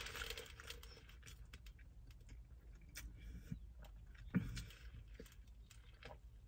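Faint sipping of a drink through a plastic straw, with small scattered clicks from the cup and mouth and one louder soft knock a little over four seconds in.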